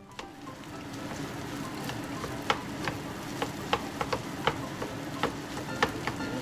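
Fried rice sizzling in a large pan as it is stirred and turned with a wooden spatula, with sharp irregular clacks of the spatula against the pan, more frequent in the second half.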